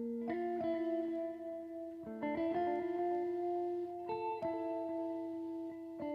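Background music: a plucked guitar playing a slow melody of held notes.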